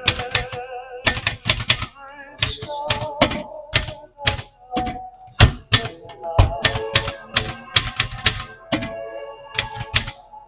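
Old typewriter being typed on: sharp key clacks at an uneven pace, several a second, with a melody playing underneath.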